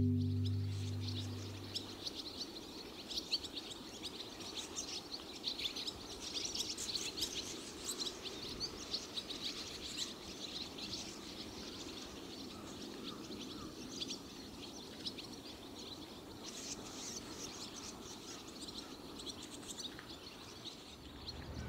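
A large flock of barn swallows twittering as they gather to roost: many short, high chirps overlapping continuously, over a faint low steady hum.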